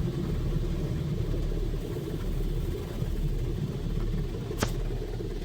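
Steady low rumble heard from inside a car's cabin in an automatic car wash, with a single sharp click about four and a half seconds in.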